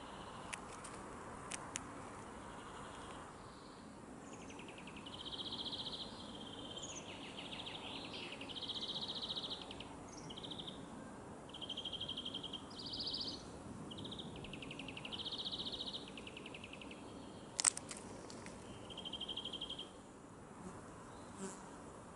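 An insect stridulating in a series of high-pitched buzzy trills, each about half a second to a second and a half long, beginning about four seconds in and stopping shortly before the end. A few sharp clicks sound early on, and one louder click comes near the end.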